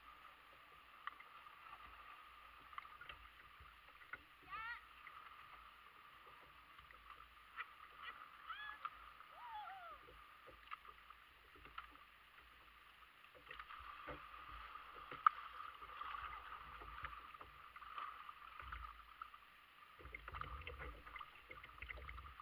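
Quiet sounds of kayaking on a shallow creek: small paddle splashes, drips and water ticking against a plastic hull over a faint steady hiss of moving water. Faint distant voices come through now and then, and wind rumbles on the microphone in the second half.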